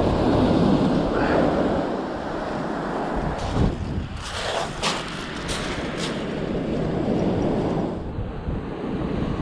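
Wind buffeting the microphone over surf breaking on a shingle beach, with a few short sharp clicks about four to six seconds in.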